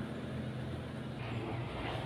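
Steady low hum of an engine running, over a background rush of noise; the hum grows a little stronger about halfway through.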